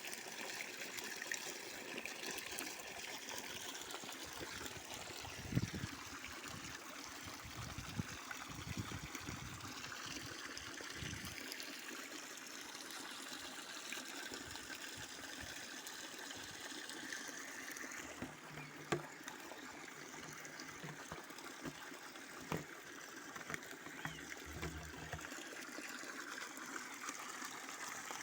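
Natural spring water trickling and splashing steadily, with a few brief knocks along the way.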